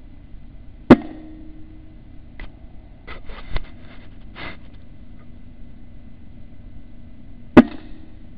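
Two air rifle shots about six and a half seconds apart, each a sharp crack with a brief low ring after it, fired at rats in a night-vision scope's crosshairs. Softer rustling and a dull knock come between the shots.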